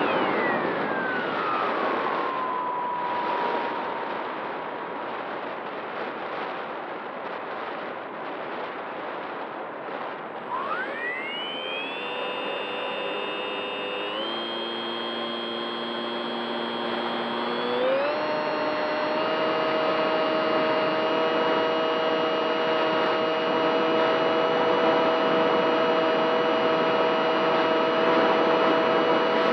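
Model Spitfire's motor and propeller whining, with wind rushing over the onboard camera. The whine falls in pitch as the throttle comes back, then climbs sharply about ten seconds in as the throttle opens, steps up twice and holds steady at cruise.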